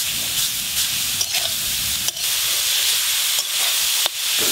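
A steel spatula stirring and scraping grated coconut and date-palm jaggery in a steel wok, cooking a coconut filling. A steady hiss runs underneath, and a few sharp scrapes of metal on metal stand out.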